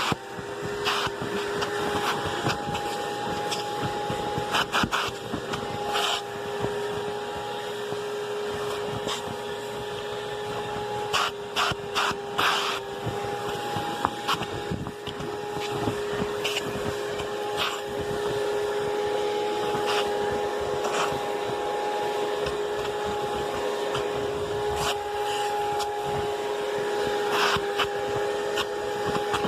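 Vacuum cleaner running steadily with a constant whine, with scattered short clicks and rattles as the attachment is worked over a mattress and bedding.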